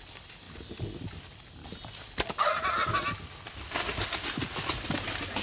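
Feral hog squealing loudly for under a second, right after a sharp crack, then crashing and rustling through brush and leaves. The squeal is typical of a hog just hit by an arrow.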